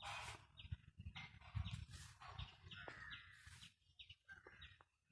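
Faint bird chirps: many short, repeated calls, with a few brief scuffing rustles and a low rumble beneath.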